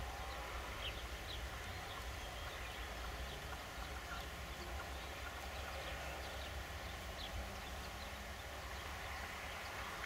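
Red-legged partridge giving faint, scattered short call notes, a male calling to his mate, over a steady low rumble.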